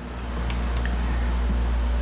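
A machine starts up with a deep, steady hum that swells over the first half second and then holds level, with a couple of faint light clicks over it.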